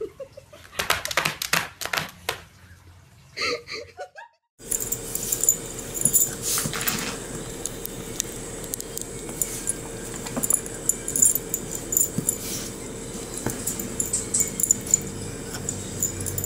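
A small dog squirming in a padded bed, with scratchy rustles. Then, after a short break, a puppy nosing in a ceramic bowl: scattered clinks and knocks over a steady hum.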